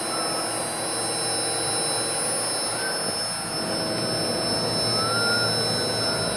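Robot-mounted high-speed milling spindle running steadily during a finishing pass: a constant high whine over a rushing hiss, with a few brief, faint glides in pitch as the arm moves the cutter along the part.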